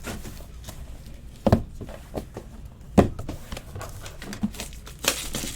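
Light handling sounds on a table: two sharp knocks about a second and a half and three seconds in, with fainter taps between, then packaging starting to rustle near the end.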